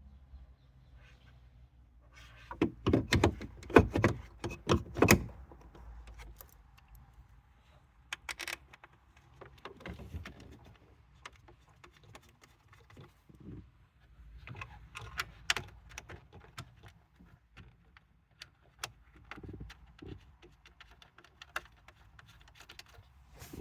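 Metal tools and trim parts clicking and knocking as a gear lever assembly is fitted and screwed into a car's centre console, with a burst of rapid clicks a few seconds in and scattered knocks after.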